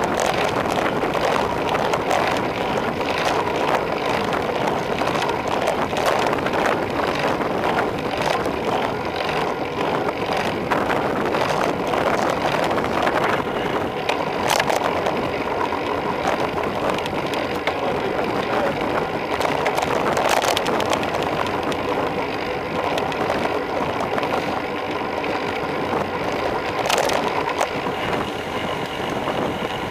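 Steady rush of wind and road noise on a handlebar-mounted camera of a road bike descending a mountain road, with a few sharp clicks from jolts over the road.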